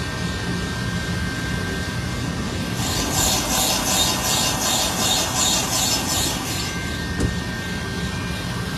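Steady drone of machine-shop equipment with a thin, steady high whine. From about three seconds in, a hissing noise pulses about three times a second for roughly four seconds, then stops.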